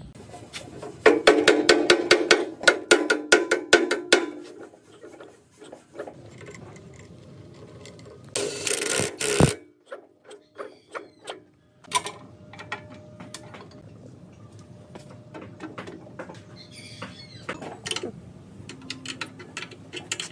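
Rubber mallet knocking rapidly on a cast pulley, driving it onto the air compressor pump's shaft, for about three seconds. About eight seconds in comes a short loud hiss. The second half holds scattered metallic clicks and ratcheting as a wrench works the electric motor's mounting bolts.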